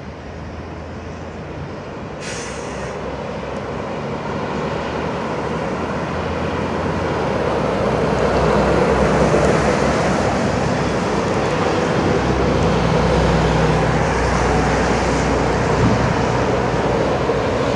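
Heavy lorries driving round a roundabout close by, first a MAN rigid flatbed with a loader crane and then an articulated box lorry: diesel engines running with tyre noise. The sound grows louder over the first half as they approach, then stays steady.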